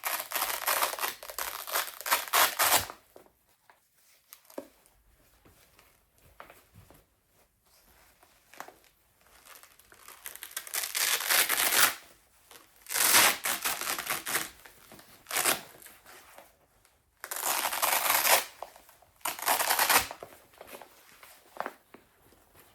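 Velcro straps on leg massager wraps being ripped apart in rasping pulls: a run of them at the start, then about five more pulls, each a second or two long, with near-quiet gaps between.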